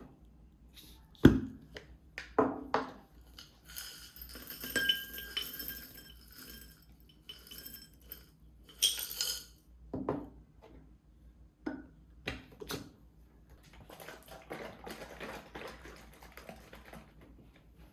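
Dishes and cutlery being handled: a few sharp knocks and bright, ringing clinks of crockery or glass.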